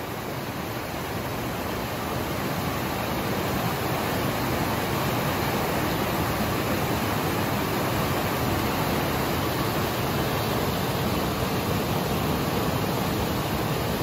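Steady rush of a waterfall, growing a little louder over the first few seconds.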